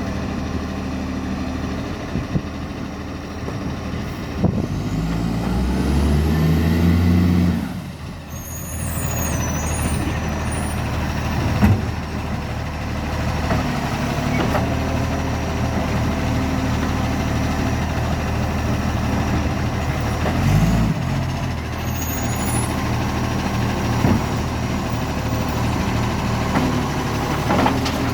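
Garbage truck's diesel engine running with a bad exhaust leak, revving up about four seconds in and dropping back sharply near eight seconds. Short hisses of air follow, and another comes later.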